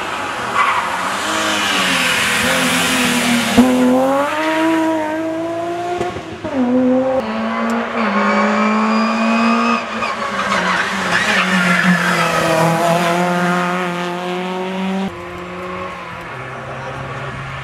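Rally cars accelerating hard one after another, engines revving up through the gears, the pitch climbing and then dropping back at each gearshift.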